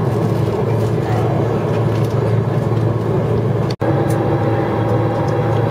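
Steady cabin noise inside a jet airliner taxiing after landing: a low, even hum of the engines and ventilation. The sound cuts out for an instant about four seconds in.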